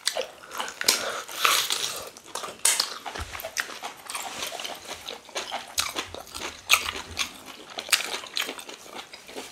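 Close-up eating sounds: chewing and lip-smacking on stewed meat and fufu eaten by hand, as a string of irregular wet clicks and smacks.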